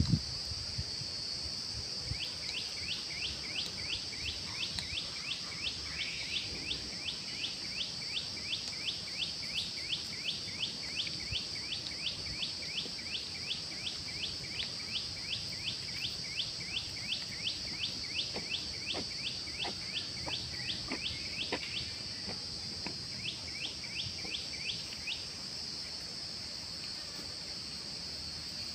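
Steady high-pitched drone of insects, with a repeated short chirp about two or three times a second through most of it that stops a few seconds before the end.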